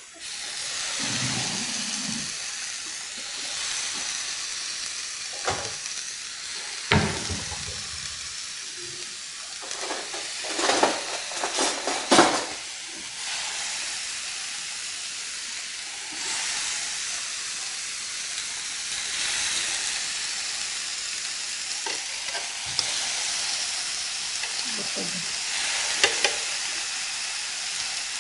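Marinated meat kebab skewers with onion and bell pepper sizzling on a hot electric griddle, a steady hiss that begins as they go down. Now and then a sharp knock or clatter as more skewers are laid on the pan.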